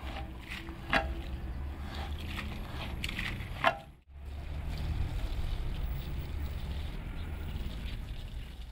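A squeegee pushed across a soaked rug, swishing water off it with scrapes and two sharp knocks; it cuts off abruptly about four seconds in. Then water sprays from a hose wand onto the rug in a steady rush over a low hum.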